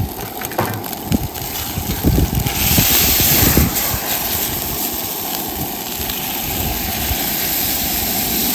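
Garlic and chilli frying in an oiled pan on a propane camp stove, with a few knocks of the utensil on the pan. About two and a half seconds in, a loud burst of hissing comes as the pan flares up in flames, then steady sizzling with the burner's roar.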